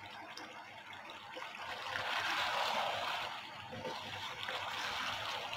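Mutton keema and potatoes simmering in their cooking water in a pan, with a bubbling hiss that gets louder about two seconds in as a wooden spatula stirs through them.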